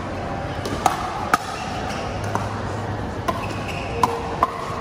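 Pickleball paddles striking a hard plastic ball during a rally at the net: sharp, hollow pops, two early on and three in quicker succession near the end, over a steady crowd murmur.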